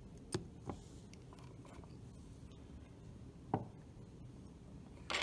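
A few light clicks and taps of small tools on a power supply's circuit board during soldering work, over a faint steady hum; the loudest tap comes at the very end.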